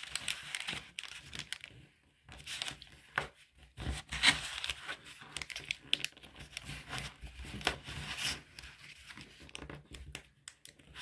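A sheet of origami paper being folded and creased by hand: irregular paper rustling and crinkling, loudest about four seconds in.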